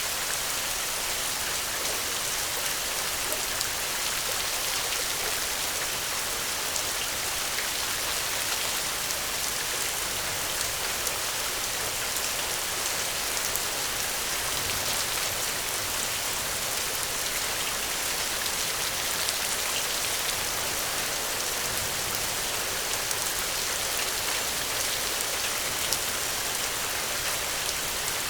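Steady, even rain falling on a surface, with occasional sharp little clicks scattered through it.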